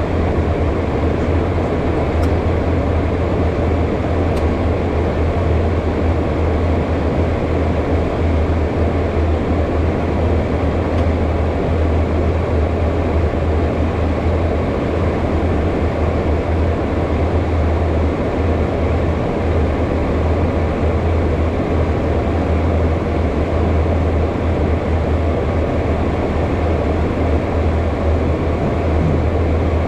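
Steady cockpit noise of a HondaJet in flight: an even rush of airflow and engine noise with a strong, constant low hum, heard from inside the cockpit.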